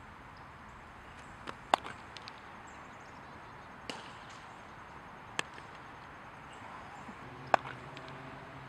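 Sharp knocks of a baseball being hit with a bat and smacking into a leather glove during fly-ball practice: four loud ones spaced a second and a half to two seconds apart, with a few fainter knocks around the first.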